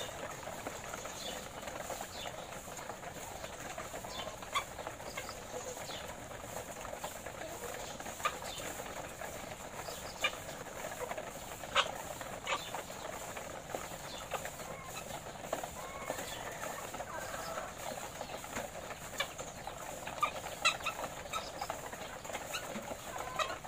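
A flock of caged laying hens clucking steadily, with scattered sharp clicks and knocks, about one every second or two.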